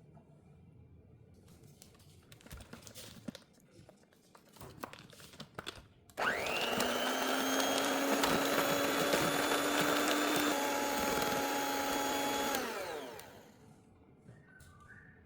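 Light clicks and knocks of kitchen handling, then an electric hand mixer switches on about six seconds in, its whine rising quickly to speed. It runs steadily for about six seconds before slowing and winding down.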